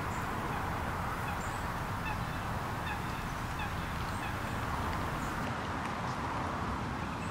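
Steady outdoor wind noise over open water, with a few faint, short distant bird calls, such as waterfowl, now and then.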